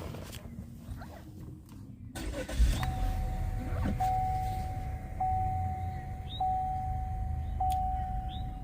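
The 1.5-litre turbocharged four-cylinder of a 2019 Chevy Malibu starts about two and a half seconds in and settles into a steady idle. This is its first run on freshly fitted NGK iridium spark plugs and reinstalled coil packs after a multiple-misfire fault. Over the idle, a steady electronic tone pulses about once a second.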